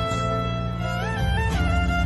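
Background music: a slow violin melody over held low notes, sliding up between notes about a second in.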